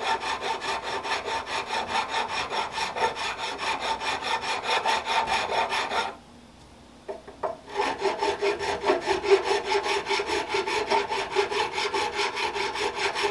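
Hand file rasping in even strokes, about three a second, across a Jeep Grand Cherokee rear brake caliper bracket clamped in a bench vise, with a ringing tone from the metal; the filing stops for about a second just after the middle, then resumes. The file is dressing down high spots and gouges in the pad-slide grooves.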